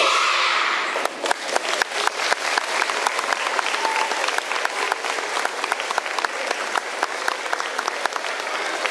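A short shout of children's voices at the start, then an audience applauding with dense clapping that continues throughout.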